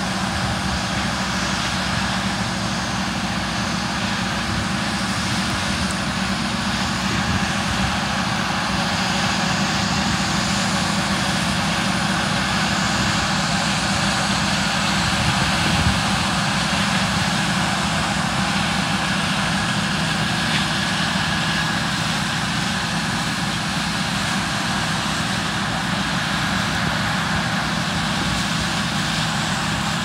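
John Deere combine harvesting dry soybeans with an old John Deere 8440 four-wheel-drive tractor and grain cart running alongside it as it unloads on the go; their diesel engines and the threshing machinery make a steady drone.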